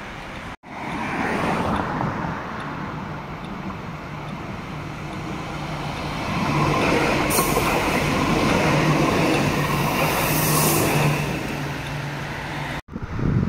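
Cologne Stadtbahn light-rail car coming up the track and passing close by: steel wheels rumbling on the rails under a steady low motor hum. The sound builds to its loudest about halfway through as the car goes past, then eases off.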